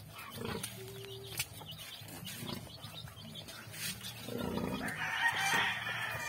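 Nursing sow grunting low and rhythmically while her piglets suckle. From about four seconds in, a louder stretch of higher-pitched piglet squealing lasts a couple of seconds.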